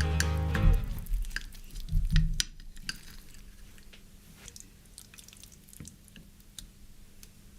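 Background music ending about a second in, followed by soft kitchen handling: scattered clicks and taps of utensils and dishes, with a couple of low thumps around two seconds in.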